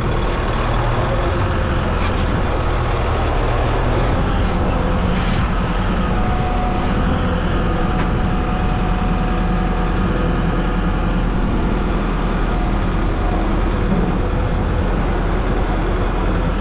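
Farm tractor engine running steadily under work, its pitch shifting a little, with a few short knocks in the first few seconds.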